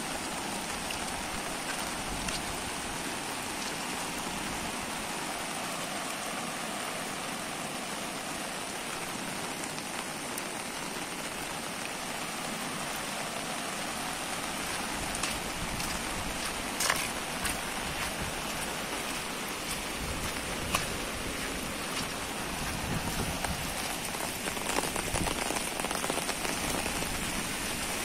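Steady rain falling, an even hiss, with two sharp taps past the middle and some low, uneven rumble near the end.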